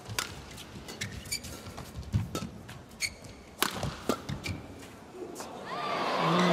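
Badminton rally in an arena: sharp racket strikes on the shuttlecock every half second to a second, with short squeaks of court shoes. Near the end the crowd's cheering swells as the point is won.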